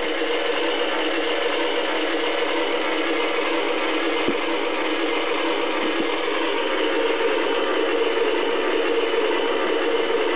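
A K'nex radio-controlled dragster's electric motor and plastic gears whirring steadily as it drives, growing a little louder in the second half, with two short clicks in the middle.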